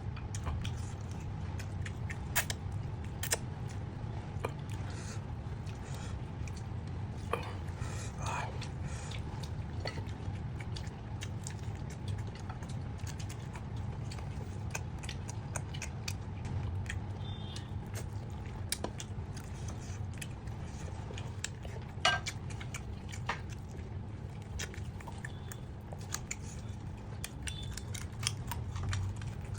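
Close-up chewing and biting while eating deshi chicken vuna: scattered wet clicks and smacks, over a steady low hum.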